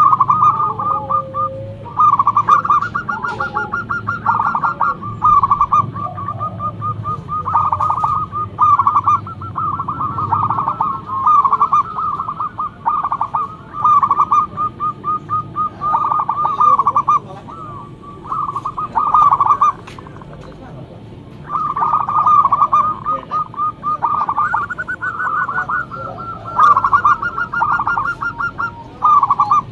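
Zebra dove (perkutut) cooing: phrase after phrase of rapid, stuttering notes, repeated almost without break, with one short pause about two-thirds of the way through.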